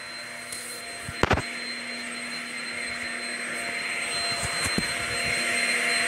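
Shark Rocket self-cleaning stick vacuum running, its motor giving a steady high whine that grows gradually louder. A couple of sharp knocks come a little over a second in.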